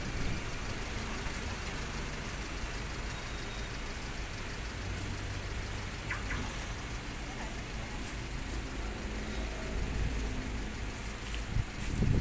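Strong, gusty wind blowing through trees before a rainstorm: a steady rushing noise with a low rumble of wind on the microphone.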